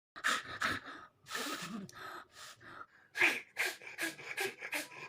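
A woman's short, forceful breaths and snorts through the nose, about a dozen in a row, with a longer one about a second in and a quicker run of sharp ones, about three a second, in the second half: attempts at nose blowing.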